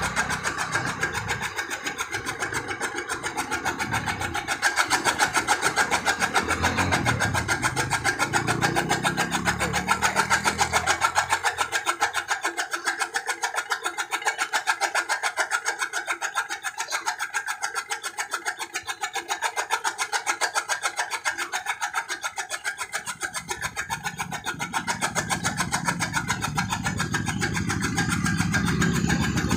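Straw chopper (chaff cutter) machine running steadily with a fast, even mechanical clatter. A deeper rumble underneath drops away about twelve seconds in and comes back about twenty-three seconds in.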